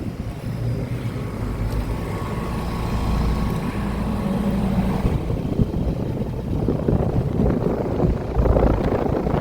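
Trane Choice-series outdoor condensing unit running in cooling mode. Its condenser fan gives a steady rush of air noise over the low hum of the Alliance scroll compressor, with low rumbling swells about two seconds in and again near the end.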